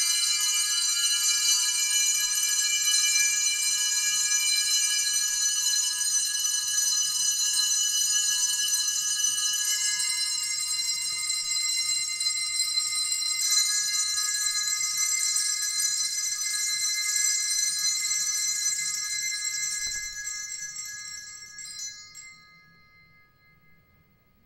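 Experimental live music: a dense cluster of steady, high ringing tones held without dying away. Some tones drop out and new ones enter partway through, then the whole cluster fades out over a few seconds near the end to near silence.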